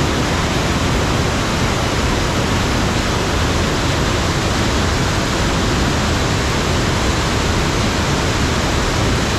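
Rain-swollen water rushing into the Erattayar diversion tunnel's intake in a loud, steady, unbroken roar of flood flow.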